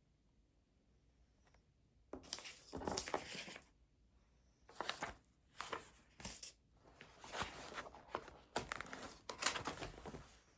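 Paper rustling and crinkling in about six bursts, the first starting about two seconds in, the last and loudest ending just before the end.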